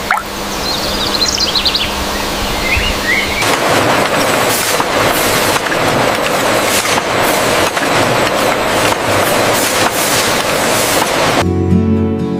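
Birds chirping over a steady low hum, then a louder rough rushing noise with scattered crackles for several seconds. Near the end it cuts off and plucked acoustic guitar music begins.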